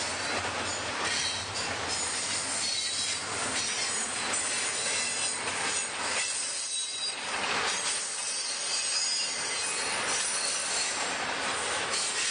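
Freight train cars rolling past, steel wheels running on the rails, with high-pitched wheel squeal that comes and goes.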